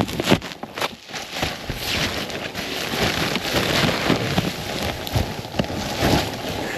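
Snowshoe footsteps crunching and shuffling through deep snow, an uneven run of rough crunches over a continuous rustling noise.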